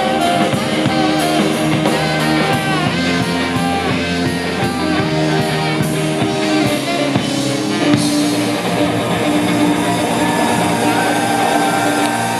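Live rock band playing an instrumental passage on electric guitar, bass guitar and drum kit. The drum beat stops about eight seconds in, leaving held guitar and bass notes ringing.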